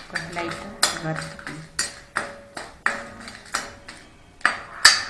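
A steel spoon clinking and scraping against a black kadai, roughly twice a second, as dried red chillies are stirred in hot sesame oil.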